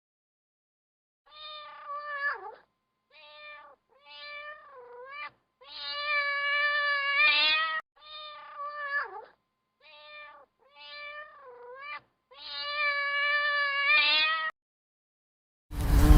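Cat meowing eight times in a row, some calls short and some drawn out, several ending in a falling slide. Just before the end the meowing gives way abruptly to a louder, steady noise.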